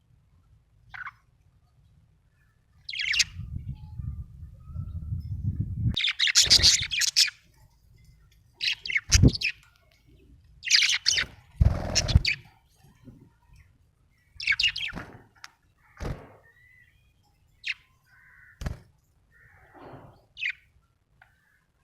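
Budgerigar chirping in short, irregular bursts of rapid high chirps. There is a low rumble about four to six seconds in and a few dull thumps.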